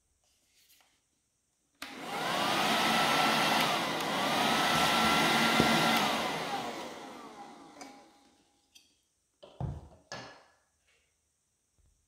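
Fakir AS 1037 NT 3.7 V cordless handheld vacuum cleaner switched on about two seconds in: its motor runs with a whine that dips once midway, then it is switched off and the whine falls away as the motor spins down. A few short knocks follow near the end.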